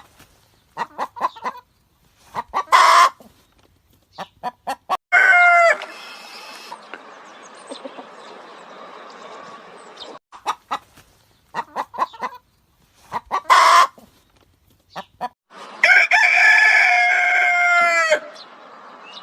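Chickens clucking in short bursts, with a rooster crowing twice: once about five seconds in, then a longer crow near the end.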